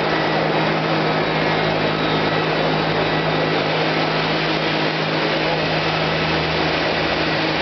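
Electric rotary polisher buffing out fresh automotive paint, running with a steady whir.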